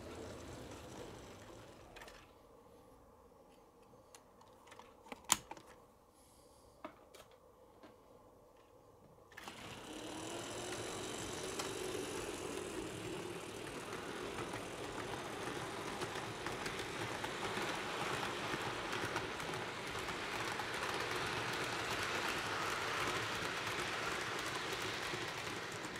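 HO scale model train running on the track: a small electric motor whirring with wheels on the rails, setting off about nine seconds in after a few faint clicks and growing slowly louder as it comes closer.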